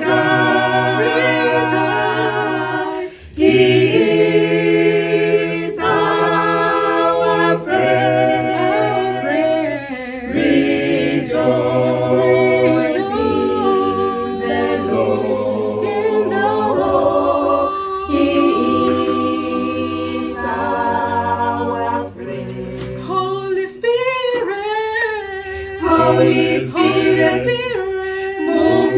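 A small mixed group of men and women singing together a cappella, in harmony, with long held notes and short breaks between phrases.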